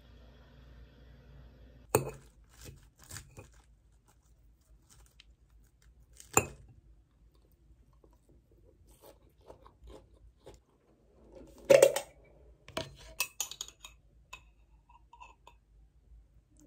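Metal fork clinking and scraping against a ceramic salad bowl, with soft chewing of crunchy salad between the strikes. There are single sharp clinks about two seconds in and again past six seconds, then a quick cluster of clinks and scrapes a little after the middle.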